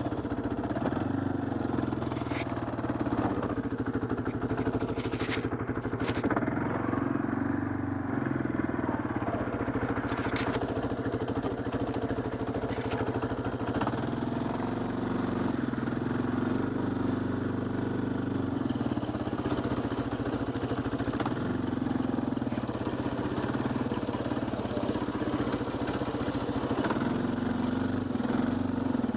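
Yamaha quad bike engine running while being ridden, its note shifting a little with the throttle. A few sharp knocks come in the first half.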